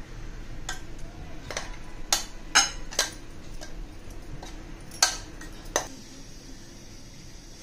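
Steel mixer-grinder jar clinking and knocking against a ceramic plate as ground curry leaf mixture is tipped and pushed out of it. The sharp clinks come irregularly, about eight of them, and stop about six seconds in.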